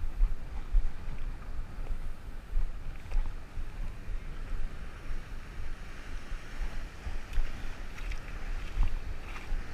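Wind buffeting the microphone in irregular gusts over the steady wash of rough sea surf.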